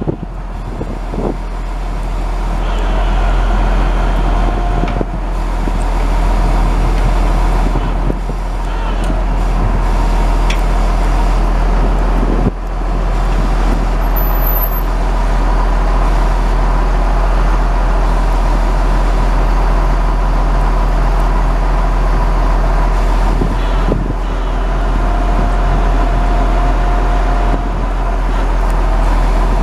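Truck's International DT466 inline-six turbo diesel running steadily, with a faint steady whine over the engine note and a brief higher whine twice.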